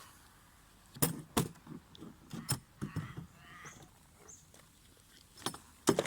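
Sharp metallic clicks and knocks, a few separate strikes with a close pair near the end, from the DEWALT FLEXVOLT chainsaw being handled while its chain tension is set and the bar fastenings nipped up.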